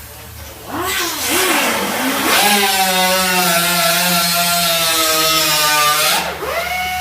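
Electric power tool motor spun up in two short bursts, then run steadily for a few seconds. Its pitch dips and recovers near the end.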